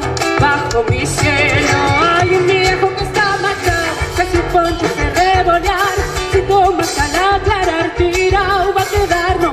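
Argentine folk music, a gato, played live: a sung melody with vibrato over a steady strummed, rhythmic accompaniment.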